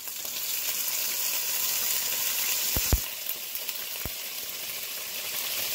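Butter and pan juices sizzling steadily in a hot skillet around seared flounder fillets as lemon juice is squeezed in. There are two small knocks, about three and four seconds in.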